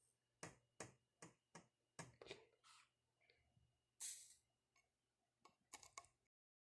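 Faint light clicks and taps of a soldering iron and a plastic LED bulb being handled during soldering, with a short hiss about four seconds in as the iron tip meets the fluxed LED board. The sound cuts to dead silence just before the end.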